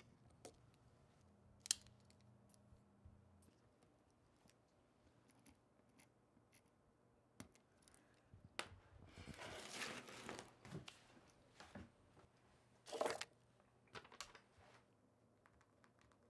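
Near-quiet room with scattered small handling noises: a sharp click about two seconds in, a stretch of rustling and crinkling about halfway through, and a louder rustle a few seconds later.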